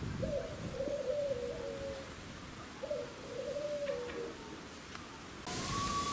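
A pigeon cooing: two drawn-out coos, each ending in a falling note. Near the end the background switches abruptly to a louder hiss.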